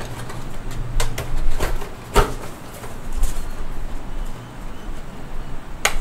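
Paper and cardboard packaging being handled: a string of short rustles and scrapes, a few seconds apart.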